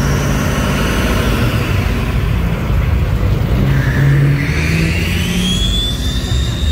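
V8 engine of a 1957 Chevrolet sedan rumbling as the car drives slowly past, with a high whine that rises in pitch in the second half.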